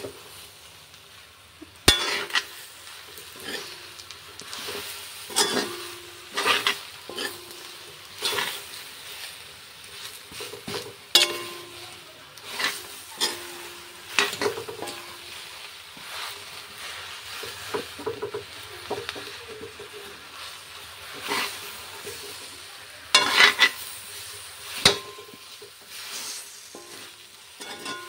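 Metal spatula scraping and stirring a red chilli and boroi pickle mixture in a black wok over a soft, steady sizzle. The scrapes are short and irregular, every second or two, with the loudest near two seconds in and again near the end.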